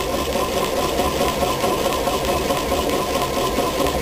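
Rhombic-drive Stirling engine turned by its generator working as a motor, running steadily with an even mechanical hum. It is driven in reverse, so it works as a heat pump warming its top heat exchanger.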